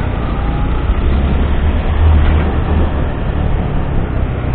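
Motorcycles riding along a road: engine running at cruising speed under a steady low rumble of wind on the microphone.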